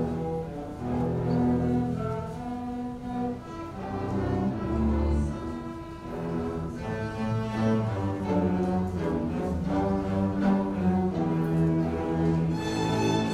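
Student string orchestra of violins, cellos and double bass playing a piece, with held low notes in the cellos and bass; the higher strings come in brighter near the end.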